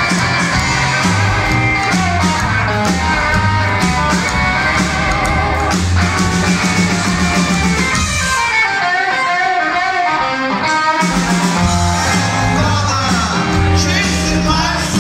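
Rockabilly trio playing live: hollow-body electric guitar over upright double bass and drums, with the guitar leading. About eight seconds in, the bass and drums drop out for roughly three seconds, leaving the guitar alone, then the full band comes back in.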